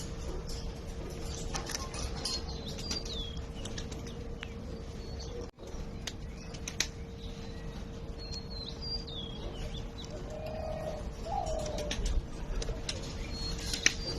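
Pigeons flapping their wings, with scattered short high chirps and a few lower calls over a steady hum. The sound cuts out for an instant about five seconds in.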